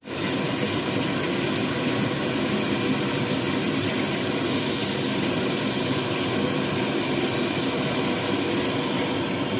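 Steady rushing noise of deep-frying on a gas stove: the burner running under a kadai of hot oil while urad dal vada batter fries in it.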